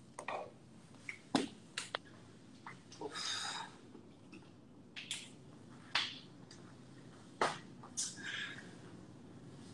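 Faint, scattered clicks and knocks with a couple of short rustles, typical of a phone being handled while it films.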